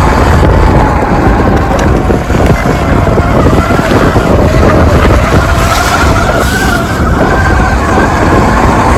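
Off-road motorcycle being ridden along a dirt track, a steady whine whose pitch drifts up and down with speed, over a heavy low rumble of wind and riding noise.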